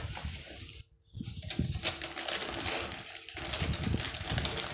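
Plastic gift packaging rustling and crinkling as hands pull open a plastic mailer and a striped plastic gift bag. The sound drops out briefly about a second in.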